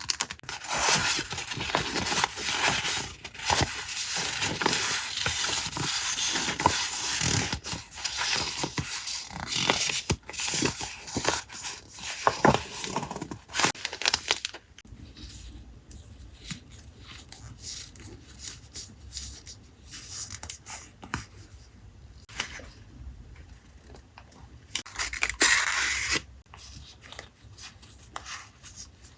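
Paper crafting sounds: paper being cut with scissors and torn, with crisp rustling, busy and dense for about the first half. After that come quieter scattered taps and paper handling, with a short burst of rustling near the end.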